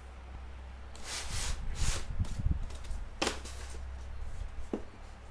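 Drone box and packaging being handled and opened: a few short scrapes and rustles of cardboard and plastic, the loudest about a second or two in, over a low steady hum.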